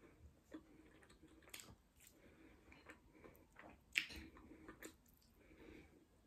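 Faint chewing and wet mouth sounds of someone eating, with scattered soft clicks and one sharper click about four seconds in.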